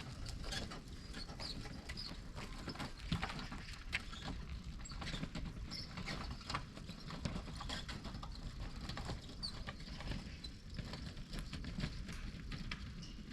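Wood campfire crackling, with irregular sharp pops and snaps over a low steady rumble of the burning fire.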